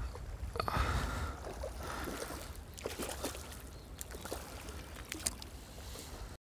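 Small waves lapping against a riverbank under a low wind rumble, with scattered faint clicks.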